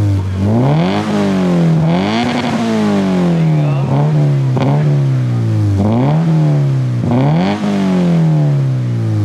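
Subaru BRZ's flat-four boxer engine through a newly fitted aftermarket exhaust, revved from idle in several quick throttle blips. Each rev climbs fast and then falls back slowly to a steady idle.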